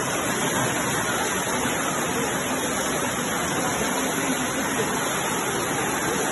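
Floodwater rushing fast and turbulently down a street, a steady, unbroken sound of churning water.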